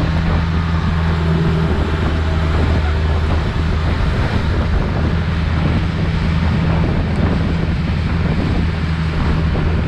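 Wooden longtail boat's engine running steadily at cruising speed, a constant deep drone, under wind buffeting on the microphone and the hiss of spray off the hull.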